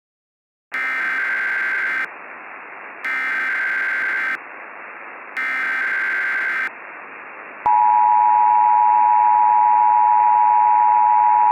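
Emergency Alert System tones over a bed of static hiss: three short bursts of screeching digital SAME header data, then a click and the steady two-tone EAS attention signal, which sounds on to the end.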